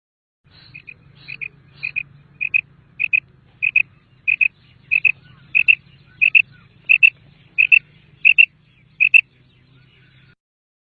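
Common quail calling: a run of short doubled notes, about fourteen in all, repeated roughly every two-thirds of a second, growing louder over the first few seconds and then holding steady. A faint low hum runs underneath.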